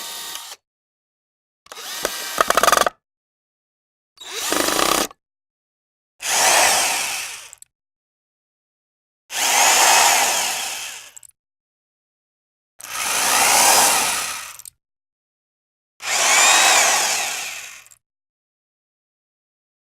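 A series of about seven short power-tool sound effects separated by silence; the last four are alike, each swelling up and fading away over about two seconds with a whine that rises and falls in pitch.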